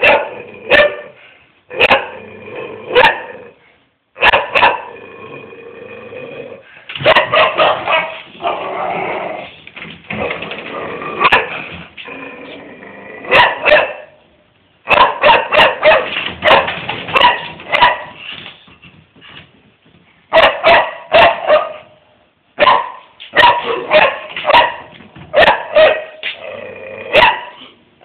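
A dog barking over and over in quick runs of sharp barks, with short pauses between the runs.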